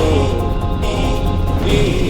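Background music: a gliding melody over a steady low drone.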